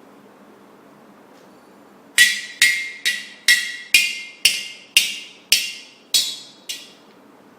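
About ten sharp knocks on a hard object, roughly two a second, each ringing briefly. They start about two seconds in, and the last couple are weaker.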